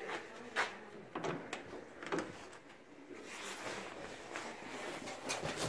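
The cab door of a 1956 Willys truck being opened: a few sharp clicks and knocks from the handle and latch.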